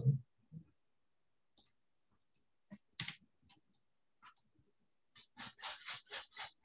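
Computer keyboard typing and clicking: scattered single key or mouse clicks, one sharp click about three seconds in, then a quick run of keystrokes near the end.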